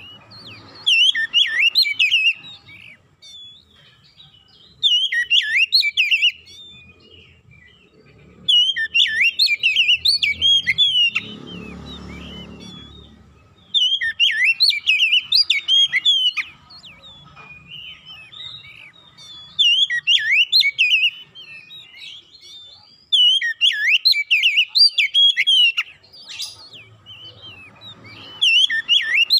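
Oriental magpie-robin (kacer) singing: about seven bursts of fast, varied whistled phrases, each a second or two long, with short pauses between. A brief low rumble sits under the song near the middle.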